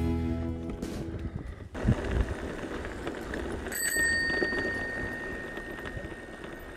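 A bicycle bell rung once, a single ding about four seconds in that rings on and fades slowly over a couple of seconds.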